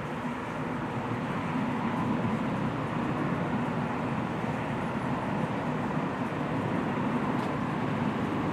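Africanized honey bee colony buzzing: a steady, dense drone that gets a little louder about two seconds in.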